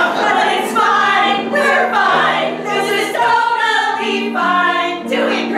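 Group of women singing together in a musical-comedy number, a run of held, sustained notes.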